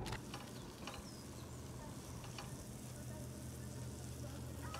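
Diced onions sizzling softly in an enamel pot on a portable gas stove, with a couple of light scrapes from a spatula stirring them.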